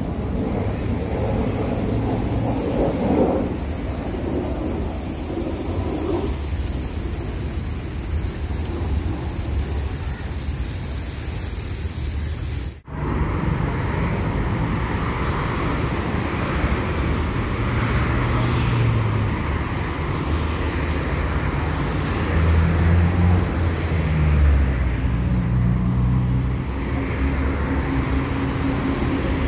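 Lawn sprinklers spraying water with a steady hiss. About thirteen seconds in it cuts abruptly to road traffic: cars passing with a low engine hum that swells and fades.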